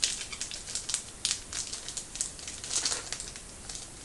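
Trading cards being handled and sorted by hand, with paper crinkling: an irregular run of light clicks and rustles.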